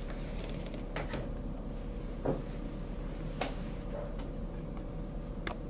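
A handful of light knocks and clicks as a full-face powered air-purifying respirator mask, with its filter and fan unit attached, is handled and set down on a table. The loudest is a dull thump a little over two seconds in, over a steady faint hum.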